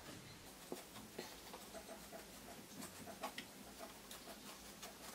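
Faint, scattered small ticks and scratches of a fingertip poking compost down into cardboard toilet roll tubes.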